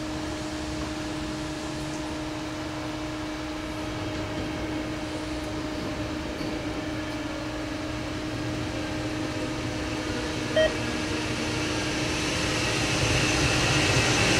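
A steady low hum over a rushing, rumbling noise that grows louder over the last few seconds, with one short beep about ten and a half seconds in.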